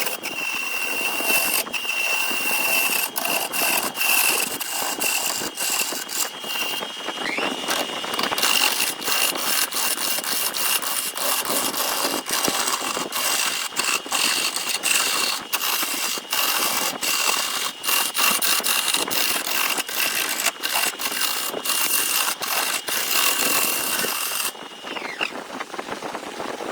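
High-speed power-tool motor running with a steady high whine over a loud hiss and many sharp ticks, as it works wood. The pitch dips and recovers about seven seconds in, then winds down near the end.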